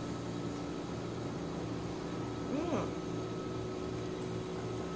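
Steady mechanical hum with several fixed tones running underneath. About halfway through, a short closed-mouth 'mm' rises and falls in pitch as the eater chews a mouthful of noodles.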